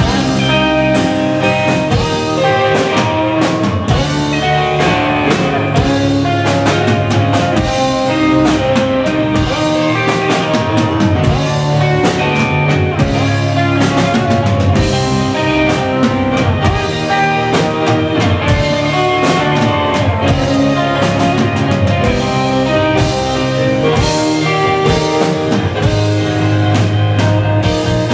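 Live alt-rock band playing a song on drum kit, electric guitars and keyboard, with drum hits at a steady pulse.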